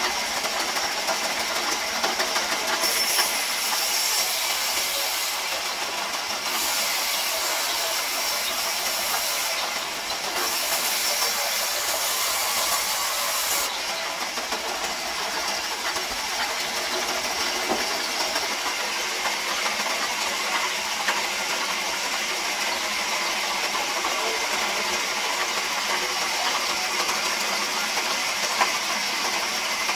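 Large vertical band saw running, its blade ripping lengthwise through a log with a steady hissing whir. A brighter, sharper hiss comes and goes three times in the first half.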